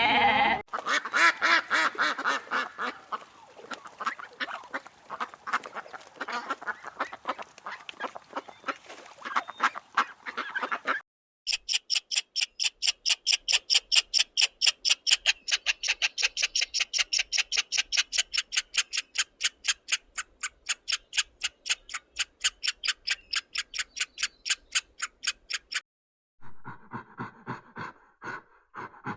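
Animal calls in quick repeated notes. A dense run of short calls gives way, about a third of the way in, to a very even, faster series of high-pitched calls at about three or four a second. After a short break a few lower calls follow near the end.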